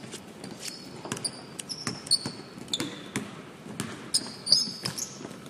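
Basketballs bouncing on a hardwood court, many sharp thuds in an uneven rhythm, with the short high-pitched squeaks of sneakers on the floor, the loudest about four and a half seconds in.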